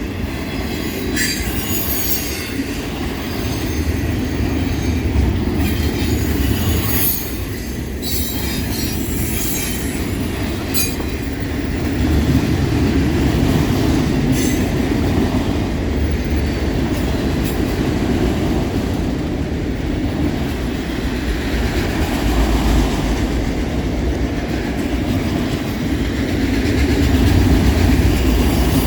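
Freight train rolling past: a steady rumble of steel wheels on rail, with brief high wheel squeals and clicks now and then. No horn.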